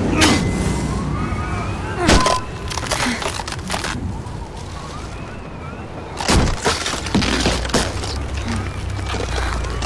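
Ice axes chopping into a wall of ice: several sharp cracking strikes, the loudest about two seconds in and about six seconds in, over a steady low rumble of wind.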